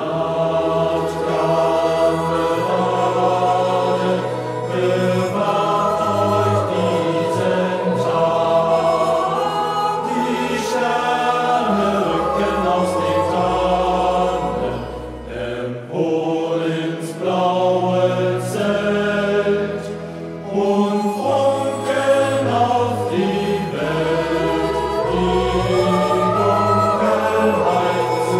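A youth choir singing a German song in unison over low bass accompaniment.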